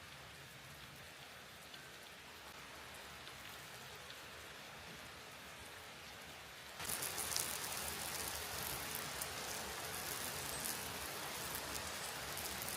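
Food sizzling as it cooks: a steady crackling hiss that jumps louder and brighter about seven seconds in.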